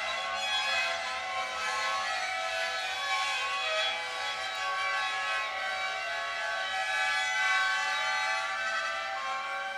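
Squeal from the steel wheels of passing freight cars: several shrill, overlapping tones that waver slowly in pitch, with no break.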